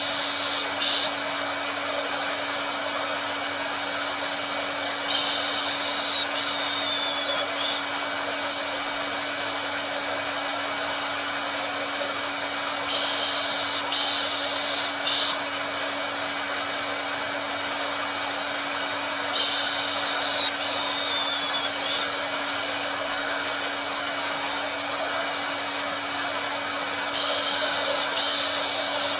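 Hair dryer running steadily, a continuous airy rush over a low, even motor hum. Every seven seconds or so a brighter, sharper hiss swells in for a second or two and drops away.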